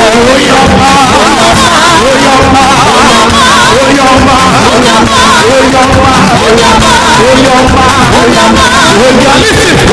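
Loud live praise music from a church band, with several voices singing over it.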